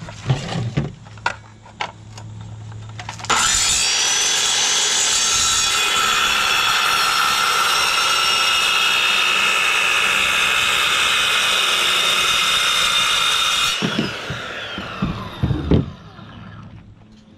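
Ryobi circular saw with a diamond blade cutting a strip off a green board: a few handling knocks, then about three seconds in the saw starts and runs loud and steady through the cut for about ten seconds. At release its whine falls away as the blade spins down, with a couple of knocks as the saw and the cut piece are set down.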